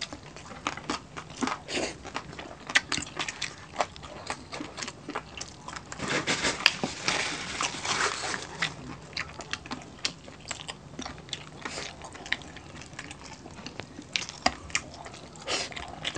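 Close-up crunching and chewing of crispy roast pork belly (lechon belly) crackling, with many sharp crackles and a denser stretch of crunching about six to eight seconds in.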